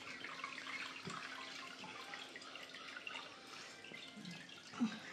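Faint trickling and dripping of liquid, with small irregular drips throughout.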